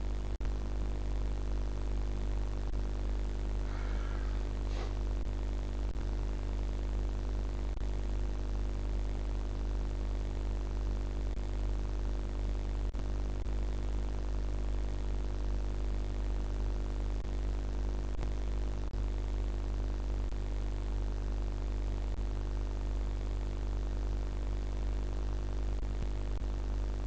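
Steady low electrical hum with a buzzy edge, running unchanged, with a faint short sound about four seconds in.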